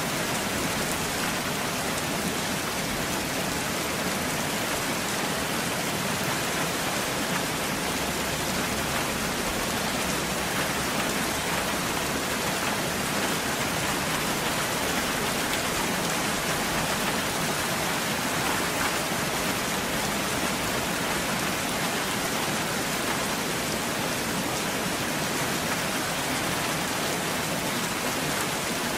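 Steady rainfall, an even hiss of falling drops that holds at the same level throughout, with no thunder.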